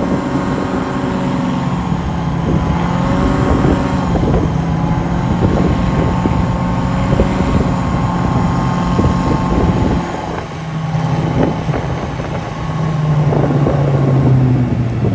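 Lifted mega truck's supercharged 365-cubic-inch V8 cruising along the road, heard from behind with wind on the microphone. The engine note eases off about two-thirds of the way through, then pulls up again near the end.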